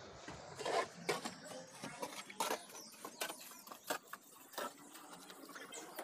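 Steel mason's trowel scraping and scooping wet mortar and knocking against ceramic hollow bricks: a string of irregular scrapes and sharp knocks.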